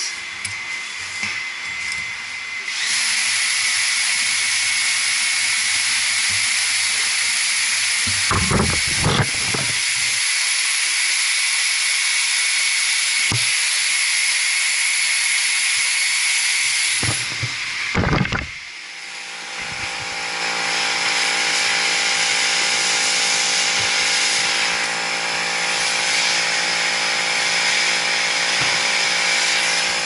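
Handheld MAP-gas torch burning with a steady hiss while it heats the brass and copper fittings of a pipe assembly. There are brief knocks about eight and eighteen seconds in; after the second the hiss dips and comes back with a steady hum under it.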